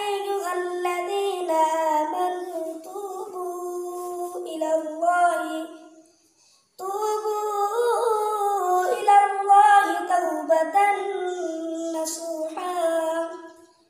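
A boy reciting the Quran in the melodic tilawat style, unaccompanied: long, drawn-out and ornamented phrases, with a short breath pause about six seconds in.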